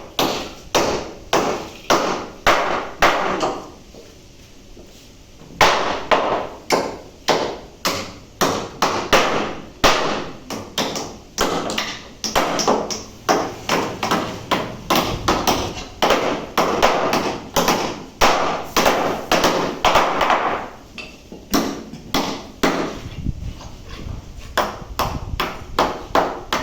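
Hand tool hammering in a steady rhythm, about two sharp strikes a second, with a short pause of about two seconds early in the run.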